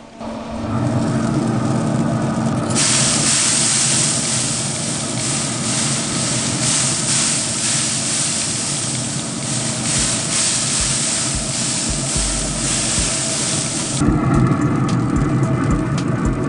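Loud steady hissing at an open pellet smoker holding beef short ribs. The hiss grows much brighter about three seconds in and drops away abruptly near the end, leaving a lower rumble.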